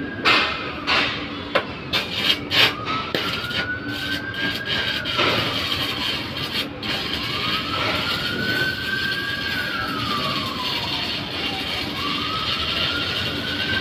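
Arc welding overhead: the arc crackles and hisses steadily, with a few sharp clicks in the first three seconds. Over it a siren wails, rising slowly and then dropping off about every four seconds.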